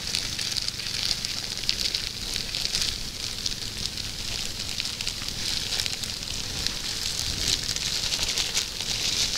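Plastic bag of wheat flour rustling and crinkling as the flour is poured out of it into a tin: a steady crackly hiss with small crinkles.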